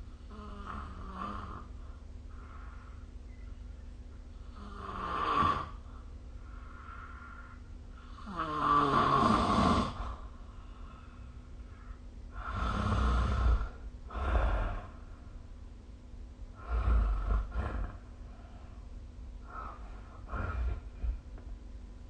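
A sleeping person snoring: about seven snores of varying length and loudness, coming at irregular intervals a few seconds apart, over a faint steady background hum.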